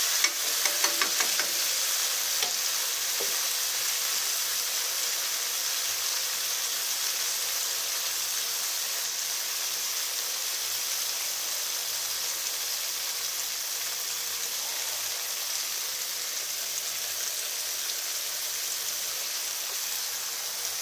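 Cubes of silken tofu shallow-frying in oil in a frying pan, giving a steady sizzle. There are a few short clicks and crackles in the first couple of seconds.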